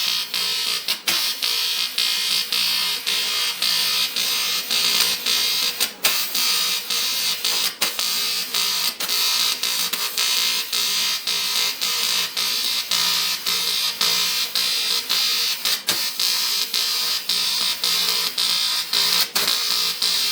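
Electric welding arc on aluminium: a steady buzzing hiss, broken every second or so by brief dips and a few sharp clicks.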